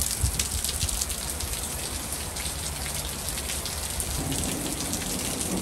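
Rain mixed with small hail falling steadily on grass, concrete and the street, an even hiss full of fine ticks from individual hits.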